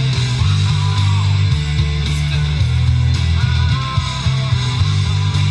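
Rock music with electric guitar and a heavy, steady bass line, played loudly through a dB Audio Set 502-120 BT vented three-way speaker in a post-repair sound test.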